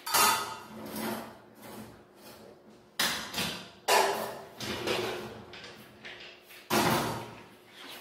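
Cookware being handled on a gas stovetop: a pan and a pressure cooker are moved and set down, giving four sharp metal knocks and clatters with brief ringing.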